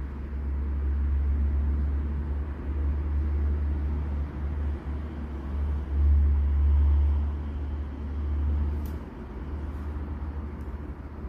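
Low, uneven rumble that swells and fades, loudest about six seconds in, with a few faint clicks near the end.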